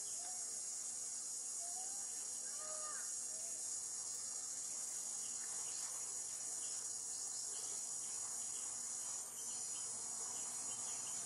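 Steady high-pitched drone of insects in the forest canopy, with a few faint short chirping calls in the first few seconds.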